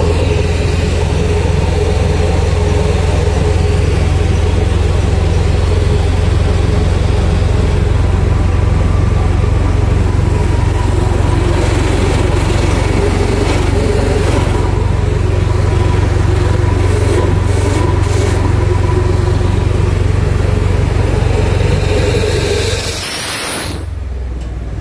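Screw vacuum pump skid driven by an Isuzu 6HH1 six-cylinder diesel engine running steadily under test, a constant loud low drone. Near the end the sound briefly drops and thins out.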